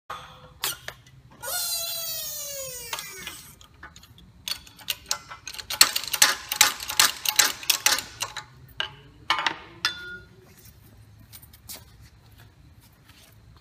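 Hand-pumped hydraulic bottle jack on a shop press being worked: a squeak gliding down in pitch about a second and a half in, then a quick run of metallic clicks and clanks for several seconds.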